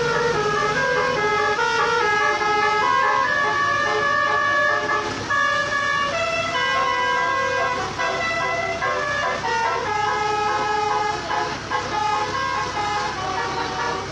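Bus's telolet basuri multi-tone air horn playing a melody: several horn notes sound together and step from pitch to pitch every fraction of a second, without a break.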